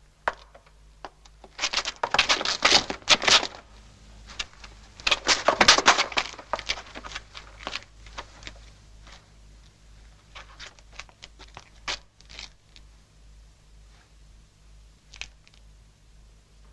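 Paper rustling and crinkling in two bursts of about two seconds each, followed by scattered soft clicks and rustles, over a steady low hum.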